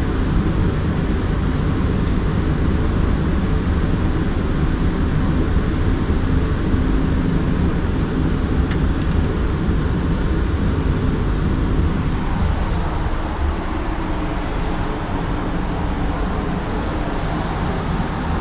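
Steady mechanical roar of a paint spray booth's ventilation fans. About twelve seconds in, the sound shifts and the low rumble eases slightly.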